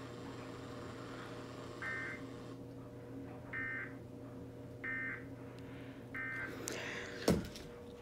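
Four short electronic beeps about every second and a half over a steady electrical hum, sounding while a TV shows an emergency alert crawl for a severe thunderstorm warning. A sharp knock comes near the end.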